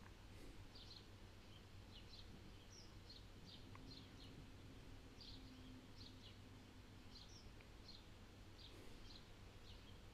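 Faint small birds chirping, with short high chirps coming irregularly a couple of times a second over a low steady hum.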